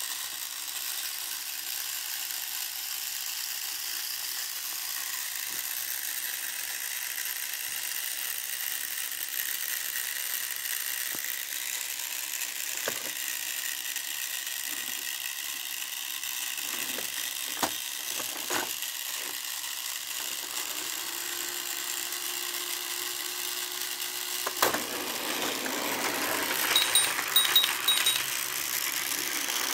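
Plastic clicks and knocks of a Tomy Trackmaster Diesel 10 toy train and its trucks being handled, over a steady hiss. A steady hum runs for a few seconds, cut off by a sharp click about 25 seconds in, then a cluster of louder rattling clicks.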